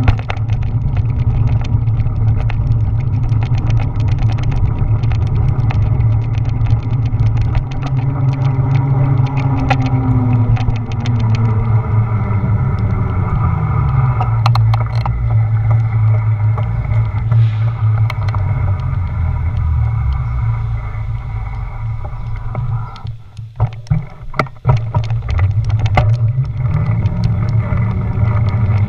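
Wind buffeting and road rumble on a bicycle-mounted action camera while riding, with frequent clicks and rattles. A lower pitch slides down about ten to fourteen seconds in, and the noise dips briefly near the end, broken by a few knocks.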